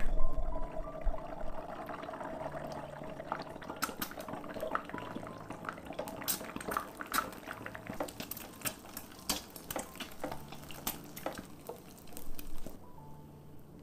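An egg frying in hot oil in a pan. It sizzles loudly as it lands, then keeps up a hiss full of sharp crackling and spattering pops as the white puffs and the edges crisp. The crackling cuts off suddenly near the end.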